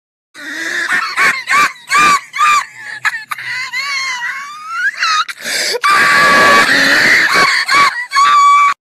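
High-pitched cartoon duckling voice crying and wailing: a run of short sobbing cries, then longer, louder drawn-out wails in the second half, cutting off suddenly near the end.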